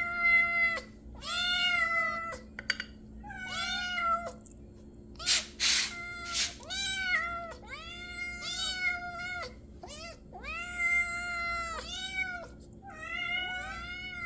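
Several domestic cats meowing over and over, about ten long drawn-out meows, some overlapping, as they beg for food at feeding time. Two short, loud scratchy noises come about five seconds in.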